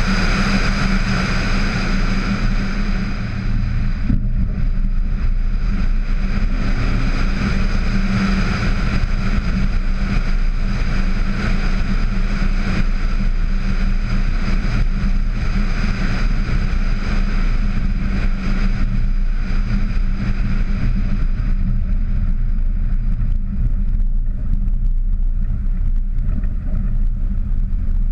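VW Tiguan driving at steady speed, heard through a hood-mounted camera: a constant low drone of engine and tyres under rushing wind noise on the microphone. A high whistle in the wind drops away about four seconds in.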